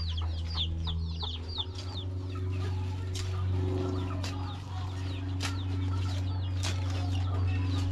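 Chickens clucking, with high chirps in the first second or so, over a steady low hum. From about three seconds in, a few sharp taps come about a second apart as a small hand tool strikes the soil.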